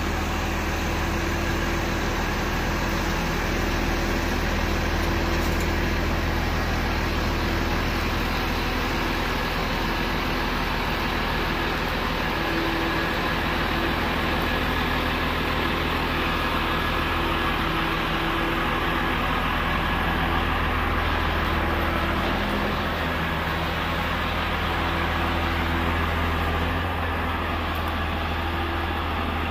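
Truck engine running steadily while a container is being tipped over, its low tone shifting slightly about two-thirds of the way through.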